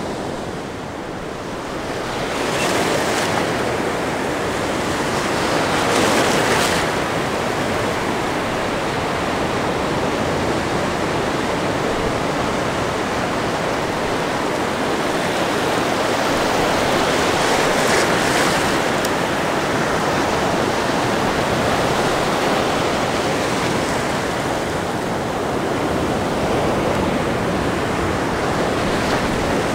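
Ocean surf breaking and washing up the beach: a continuous rush of waves that swells louder several times as bigger waves break.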